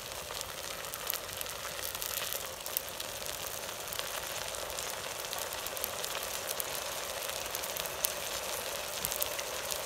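Chopped tomatoes and shallots sautéing in hot oil in a cooking pot: a steady sizzle with scattered small crackles and pops.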